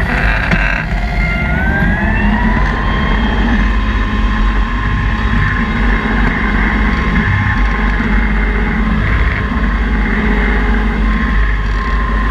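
New Holland G210 tractor's engine and driveline running steadily and loudly while pulling a PTO-driven rotary harrow. A whine climbs in pitch about a second in, as the revs come up, and then holds steady.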